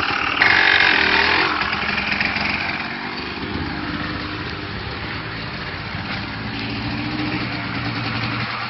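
Four-wheeler (ATV) engine running as the rider pulls away in gear, loudest in the first second and a half, then lower and steady, picking up a little again later.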